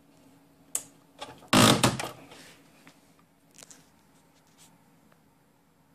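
A single sharp tap, then a loud short cluster of knocks about a second and a half in, and a few faint clicks later: a PDR tap-down tool knocking down the edge of a sharp dent in the car's sheet-metal door panel.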